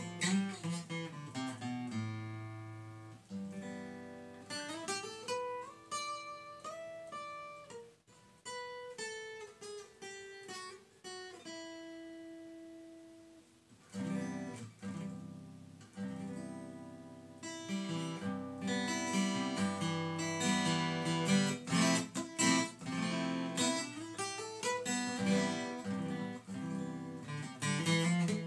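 Freshly strung acoustic guitar being played: picked notes and chord runs for the first half, a held note, then fuller strummed chords from about halfway.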